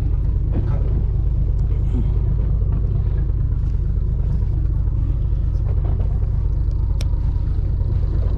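Fishing boat's engine running steadily, a low rumble with no change in speed.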